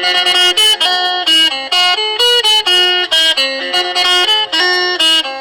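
Phin, the Isan plucked lute, playing a quick melody of plucked notes over a steady drone string.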